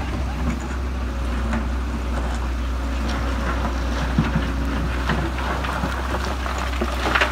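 Case tracked excavator's diesel engine running with a steady low drone, while its steel bucket scrapes and knocks against rocks and soil as it digs. The loudest scrape comes just before the end.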